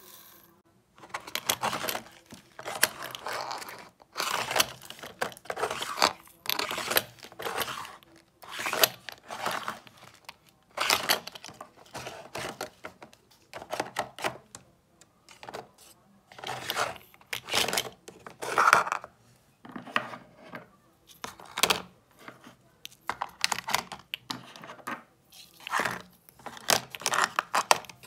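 Small glass jars of diamond-painting drills being handled and stored in a plastic drawer cabinet: irregular rattling and clinking of the loose resin drills, glass and metal lids, and hard plastic, about one or two bursts a second after a quiet first second.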